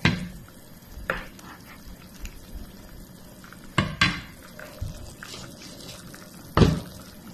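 A pan of chicken tinola soup simmering on the stove, a low steady hiss broken by about five sharp knocks or clatters, the loudest at the very start and near the end.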